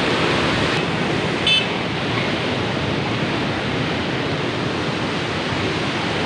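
Fast-flowing canal water rushing and churning through the gates of a headworks, a steady loud rush. A short high chirp cuts in about a second and a half in.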